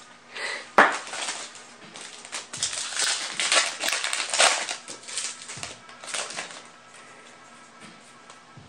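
Foil trading-card booster pack being torn open and crinkled, with a sharp snap about a second in and crinkling bursts over the next few seconds.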